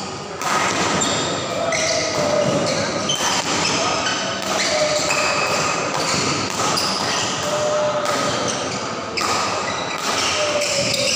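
Badminton doubles rally: rackets hitting the shuttlecock in repeated sharp smacks, with short shoe squeaks on the court floor and spectators chattering, echoing in a large hall.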